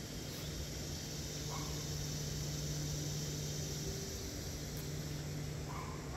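Summer garden ambience: a steady high insect drone with a steady low hum beneath it, and two short chirps, one about a second and a half in and one near the end.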